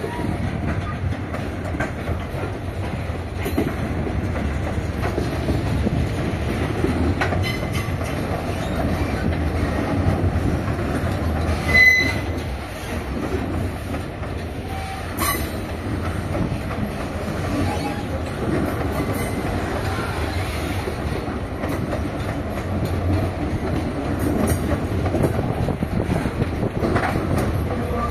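Freight train of grain hopper wagons rolling past, wheels clattering on the rails in a steady rumble. A brief high-pitched squeal sounds about twelve seconds in, and a sharp click a few seconds later.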